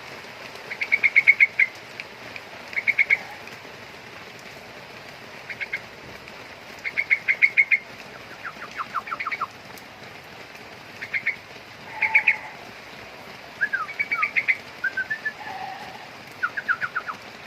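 Young curukcuk, a bulbul, calling in short bursts of quick, high chirps. Each burst runs several notes in a fraction of a second and repeats every second or two, with a few lower, falling notes mixed in.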